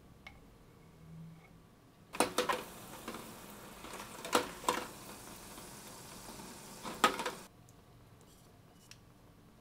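Eggs knocking against the inside of a stainless steel pot of water as they are put in by hand: five sharp clinks over a steady hiss that starts and stops abruptly.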